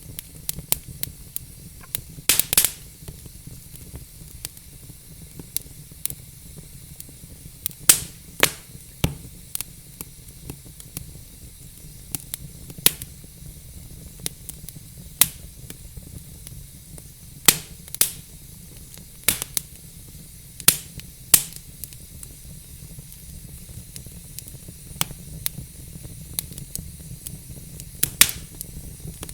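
Wood fire burning with a steady hiss and irregular sharp crackles and pops from the logs, some loud, including a quick cluster about two seconds in.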